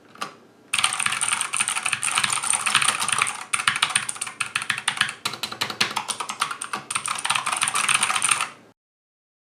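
Typing on a Keychron K4V2 mechanical keyboard fitted with clicky blue switches and pudding keycaps: a fast, dense run of sharp key clicks that starts under a second in and stops suddenly near the end.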